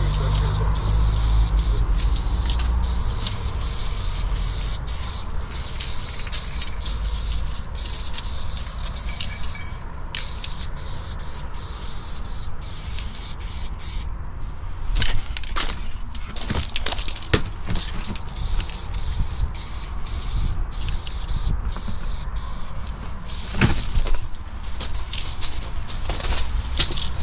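Aerosol spray paint can hissing in many short bursts with brief breaks between them, over a steady low rumble, with a few sharp clicks in the middle.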